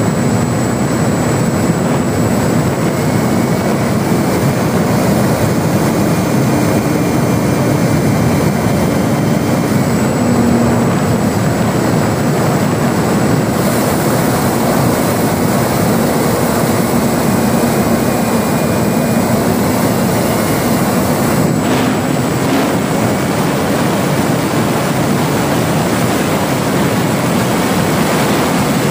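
Steady rush of air over the onboard camera of a ParkZone Spitfire RC model in flight, with the hum of its electric motor and propeller faintly underneath, wavering in pitch.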